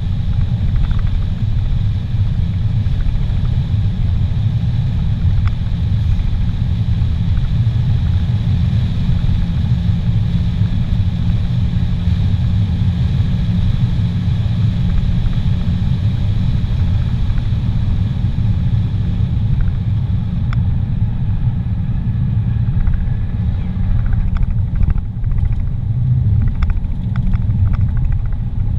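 A car driving along a highway, heard from inside the cabin: a steady low rumble of engine and road noise, with a scattering of light clicks in the last third.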